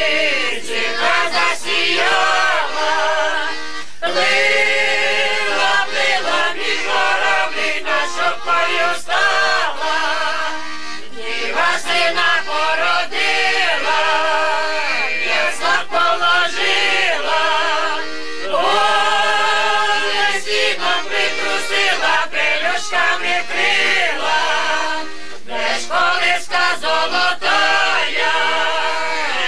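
A small group of men's and women's voices singing a Ukrainian Christmas carol (koliadka), accompanied by a button accordion.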